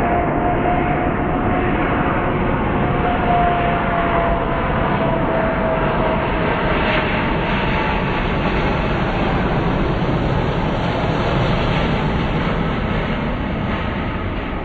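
Airbus A350's Rolls-Royce Trent XWB engines as the arriving airliner passes on approach to land: a loud, steady jet roar with a whine that falls slowly in pitch over the first few seconds.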